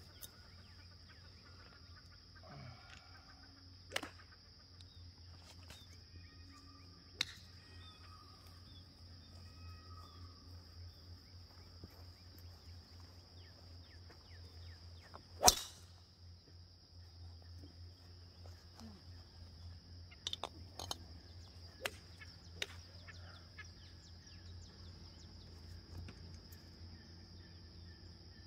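Golf clubs striking balls on a practice range: several sharp clicks, one much louder about halfway through, over a steady high drone of insects.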